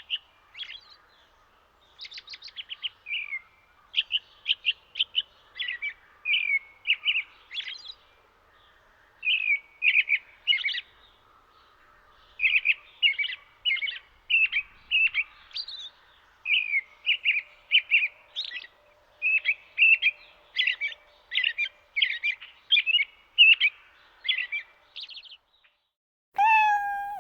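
Songbird singing: quick runs of high chirping notes in repeated phrases. Near the end, after a brief silence, a short falling whistle.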